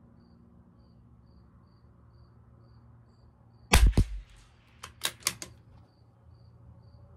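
A Tikka T1X .22 LR bolt-action rifle fires one shot, followed about a second later by a quick series of light clicks as the bolt is worked to chamber the next round. A cricket chirps steadily, about twice a second.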